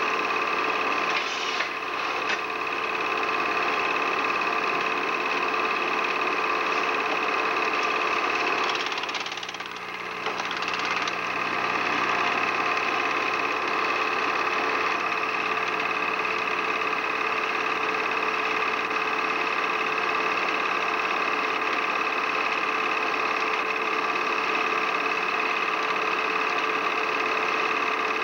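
Film projector running with a steady mechanical whir and clatter, dipping briefly about nine seconds in.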